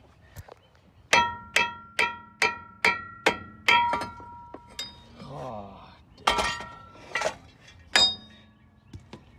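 A removed brake drum struck about seven times in quick succession, roughly two blows a second, each ringing like a bell; after a short pause three more ringing strikes follow.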